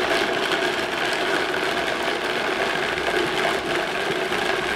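Vitamix blender running steadily on low speed, chopping roasted hazelnuts into a coarse meal.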